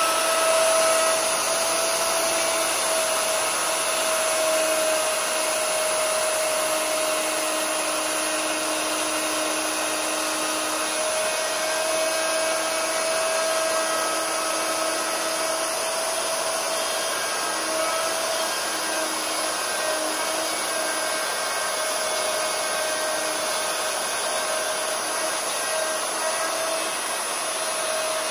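Electric plunge router running steadily with a high, even whine, its straight bit cutting a hinge recess into the wooden edge of a door.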